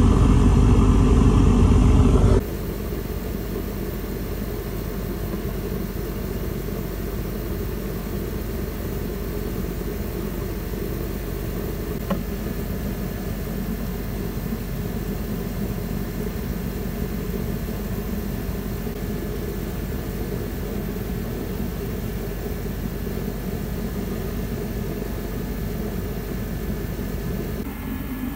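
1977 International Harvester 574 diesel tractor engine idling steadily. It is louder for the first two seconds or so, then drops suddenly to an even idle.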